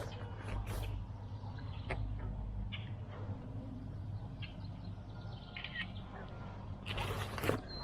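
Birds calling now and then in the background over a low steady hum, with a short rustling noise near the end.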